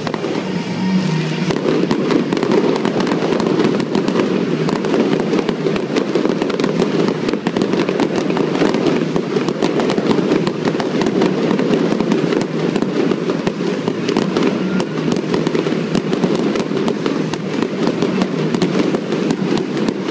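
Aerial fireworks shells bursting in a dense, unbroken barrage of bangs and crackling.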